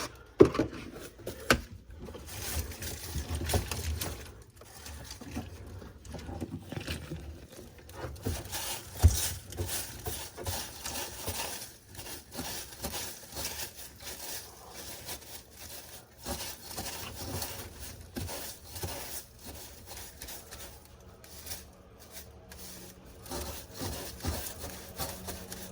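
Irregular scraping, rubbing and light knocks of debris and old carpet being cleared by hand from the opened floor compartment of a fiberglass bass boat, with sharper knocks about half a second in and about nine seconds in.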